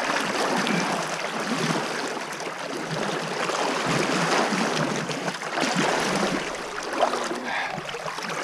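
River water rushing and splashing around a person wading across a river with a strong current.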